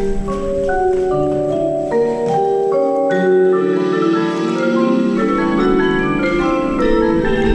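Front ensemble of an indoor drumline playing a mallet passage, overlapping sustained notes and chords on marimba and vibraphone with no drums. The low bass drops out about two and a half seconds in and comes back a little after five seconds.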